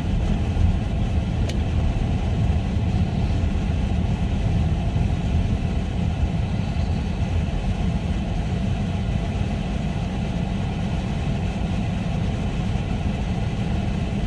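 Steady low rumble of a car running, with one faint click about a second and a half in.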